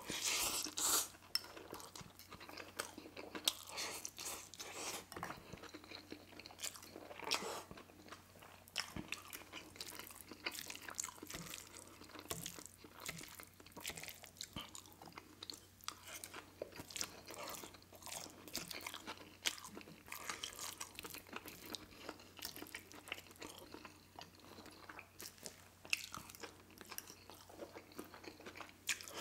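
Close-miked chewing of a mouthful of pad thai noodles: wet, clicking mouth sounds. The loudest bites come about a second in.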